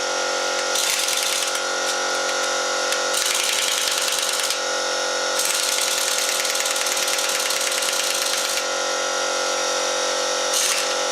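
Impact driver with a socket doing up car wheel nuts: the motor runs continuously with rapid hammering, which grows stronger and weaker several times as it bears on the nuts.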